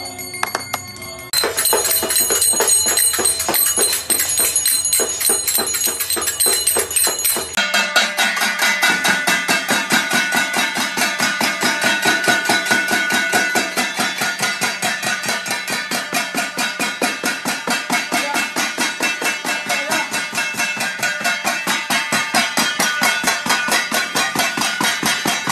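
Steel plates and lids beaten fast and steadily with spoons, mixed with hand clapping, the metal ringing on between strokes. The sound changes abruptly twice as one clip cuts to the next.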